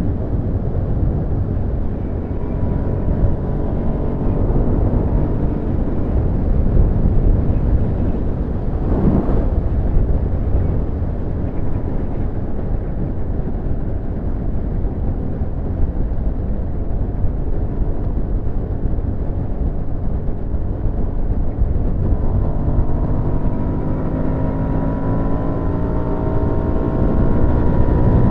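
Hyosung GT650 Comet's V-twin engine running as the motorcycle is ridden, under heavy wind rumble on in-ear microphones. A brief whoosh passes about nine seconds in, and from about twenty-two seconds in the engine note climbs steadily as the bike accelerates.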